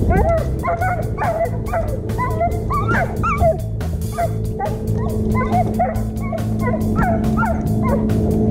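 Border Collie whining and yipping in a string of short cries that bend up and down in pitch, over background music with a steady beat.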